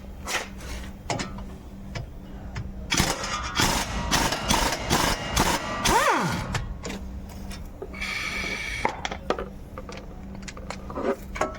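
Workshop tool noise during brake dismantling: metal clanks and a power tool running in bursts, with a whine that winds down about six seconds in and another short whirring run a couple of seconds later.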